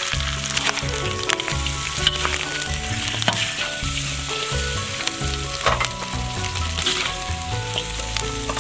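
Chicken feet sizzling in hot oil in a wok while they are stir-fried, with scattered clicks and scrapes of the spatula. Background music with held, stepping notes plays along.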